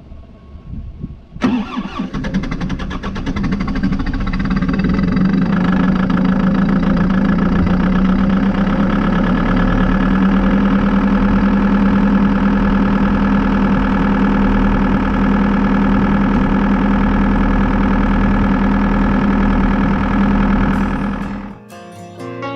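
New Holland L220 skid steer's diesel engine starting up about a second and a half in, then running steadily. It cuts out near the end as guitar music comes in.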